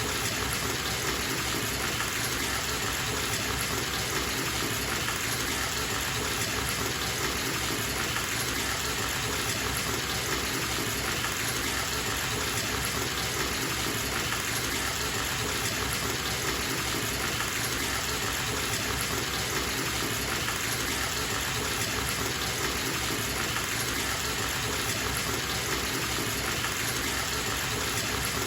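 Bathtub tap running, water gushing steadily into the tub as it fills: an even, unbroken rushing.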